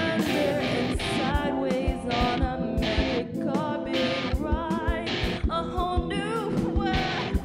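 Amateur rock song: a wavering sung voice over a steady drum beat, with electronic keyboard.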